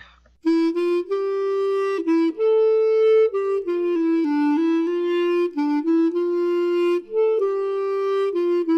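Instrumental music: a single melody line on one wind instrument, held and stepping notes, starting about half a second in.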